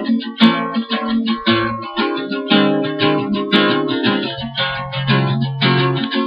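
Black acoustic guitar strummed in a steady rhythm, about three strums a second, with the chord changing partway through.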